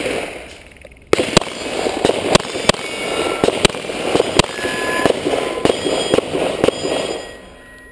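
Rapid pistol fire: a fast, steady string of gunshots at about three a second, emptying one 28-round magazine in a timed course of fire. It starts about a second in and stops near the end.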